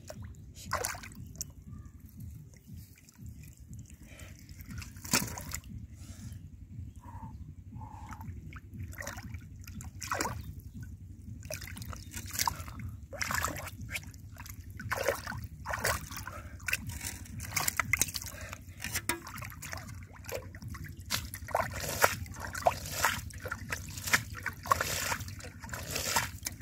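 Hands sloshing and splashing through shallow muddy water while groping for fish, in irregular splashes that come thicker and louder in the second half, over a steady low rumble.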